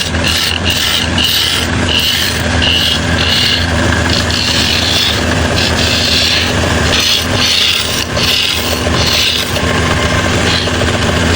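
A power tool's motor running steadily while it works bamboo in repeated rasping passes, each pass a burst of hiss over the motor's hum.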